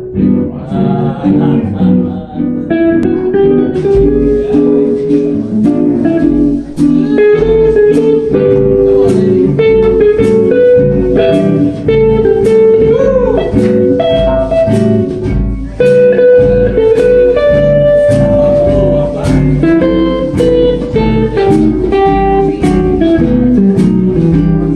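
A jazz guitar trio plays a standard: a single-note electric guitar melody over chords, with one bent note partway through. Drums come in about four seconds in and keep a steady beat.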